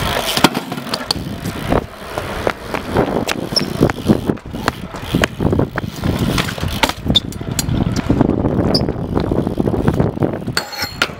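BMX bike ridden and hopped on concrete paving: tyres rolling and the bike rattling, with many sharp, irregular knocks and clicks as the wheels hop and land.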